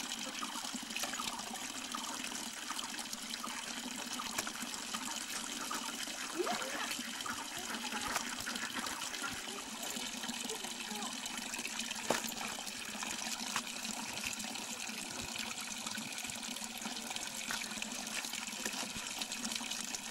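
Spring water pouring steadily from a stone spout and splashing into a metal pan and onto the rocks below. A single sharp knock about twelve seconds in.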